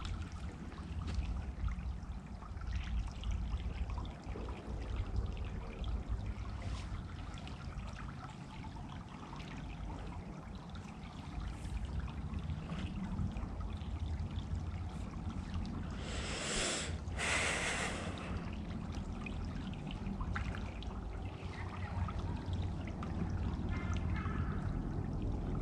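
A small woodland stream trickling and rippling steadily, under a low rumble. About two-thirds of the way through come two short hissing sounds.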